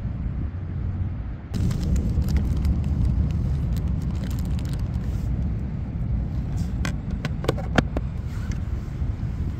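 Hands working inside an RC boat hull: plastic crinkling and small handling clicks, then several sharp clicks between about seven and eight seconds in as battery connections are made and the hatch cover is pressed on, all over a steady low rumble.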